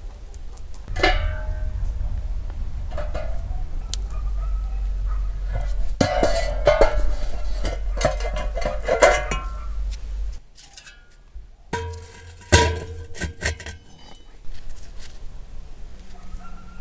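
Metal clatter and scraping as a metal poker stirs the burning charcoal at the bottom of a tandoor, followed about twelve seconds in by a few sharp, ringing metal clinks as a round metal tray is set into the tandoor's mouth. A low rumble runs under the first ten seconds.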